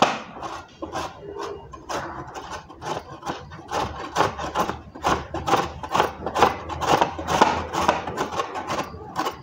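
Raw green mango, peel left on, rubbed up and down a flat stainless steel hand grater. Repeated rasping scrapes come about three a second as the fruit is grated.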